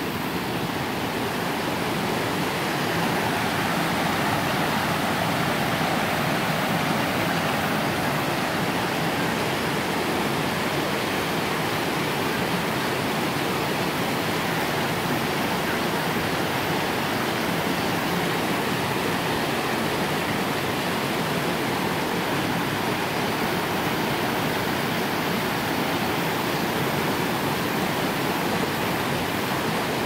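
Mountain stream rushing over and around boulders in small cascades: a steady, even rush of water that grows a little louder over the first few seconds, then holds.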